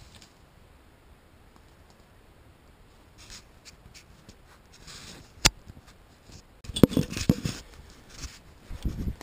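Dry leaf litter and brush rustling and crunching under slow footsteps, with a single sharp snap about halfway through and two louder bursts of crunching near the end.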